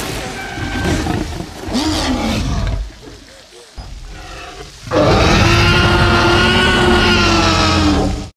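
Film sound-effect Tyrannosaurus rex roar: after a busy stretch and a quieter lull, one long, very loud roar of about three seconds starts about five seconds in and cuts off abruptly near the end.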